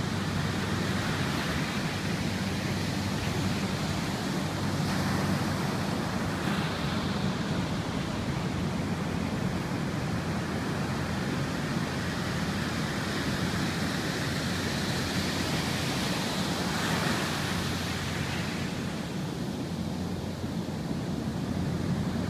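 Rough ocean surf, about 4 to 6 feet, breaking and washing ashore: a steady rushing noise that swells a couple of times as waves break.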